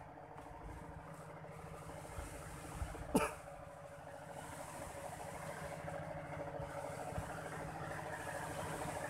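A steady motor hum, slowly growing louder, with one brief sharp sound about three seconds in.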